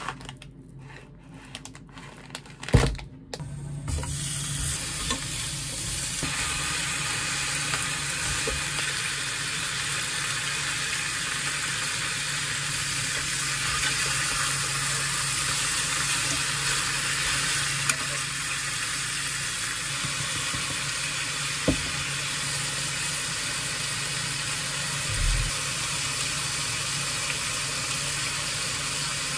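Pork belly slices sizzling in a hot frying pan, a steady hiss that starts about four seconds in after a few knocks, one of them loud. A few sharp clicks of metal tongs sound over the sizzle.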